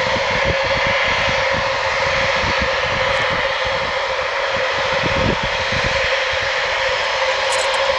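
Boeing 707's four jet engines whining steadily at taxi power, with an uneven low rumble underneath.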